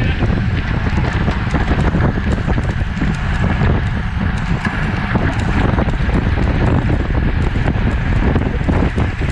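Wind buffeting the microphone of a camera on a bicycle riding at race speed: a steady, loud rumble.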